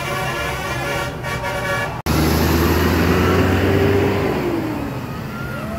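Bus 'telolet' musical horn sounding its multi-tone tune, cut off abruptly about two seconds in; then a bus passing close with a loud low drone and a tone that falls in pitch as it goes by.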